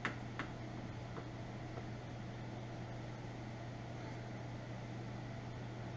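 A steady low machine hum with an even hiss behind it, and a couple of light clicks right at the start.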